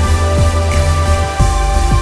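Background music: electronic music with a steady beat, held synth notes and a deep bass line.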